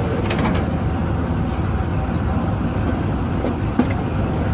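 Train noise: a steady low rumble with a few faint clicks.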